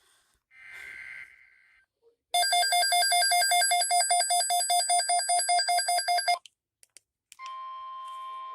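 Alert tones from a weather-alert broadcast. A short hissy burst, then a loud electronic tone pulsing rapidly, about five beats a second, for about four seconds. It stops, and near the end a steady single-pitch alarm tone near 1 kHz starts, in the manner of the NOAA Weather Radio 1050 Hz warning alarm tone.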